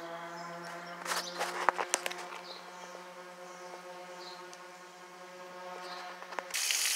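A steady machine hum with many evenly spaced overtones, with a few light clicks about a second or two in. It stops abruptly near the end and gives way to the hiss of water spraying from a garden hose nozzle.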